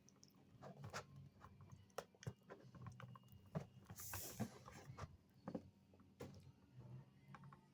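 Faint scattered clicks, taps and rustles of craft materials being handled, with a brief rustle about four seconds in.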